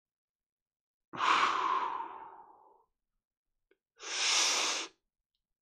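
A man's deep breaths in a belly-breathing exercise: a long breath out starting about a second in that trails away, then a shorter breath about four seconds in.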